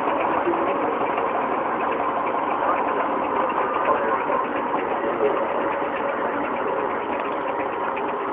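The small two-stroke engine of a Trabant P50 idles and pulls the car forward at walking pace, with a rapid, even putter.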